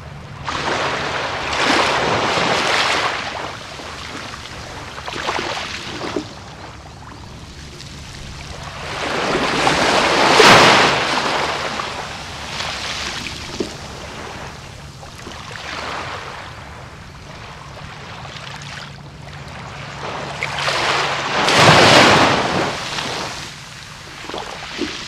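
Sea waves breaking and washing up on a sandy beach, surging loudest about two, ten and twenty-two seconds in, with a faint low steady hum underneath until about twenty-one seconds.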